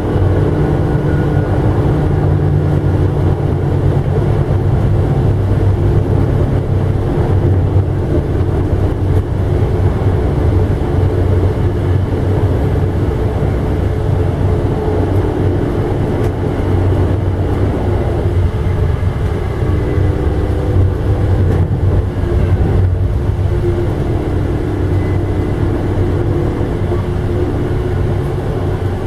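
Steady running noise of an Amtrak passenger train heard from inside the car: a low rumble of wheels on rails with a steady low hum.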